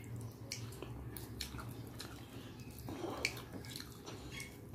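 Wet squishing and sharp little clicks of fingers mixing rice into runny mung dal on a plate, with some chewing noises, over a low steady hum.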